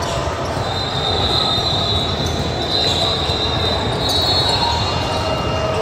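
Steady background noise from a gym during a basketball game, with a high, steady squealing tone that starts under a second in, holds for about three seconds, then gives way to a fainter, lower tone.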